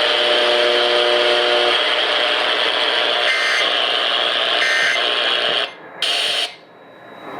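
Steady radio static from an emergency alert receiver. Two short bursts of EAS end-of-message data tones, the two-tone digital squawk that closes an alert, come about three and a half and four and a half seconds in. The static drops out briefly just before six seconds, returns, then cuts off.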